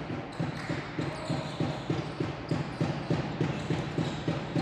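Basketball dribbled on a hardwood court, a steady bounce about three times a second.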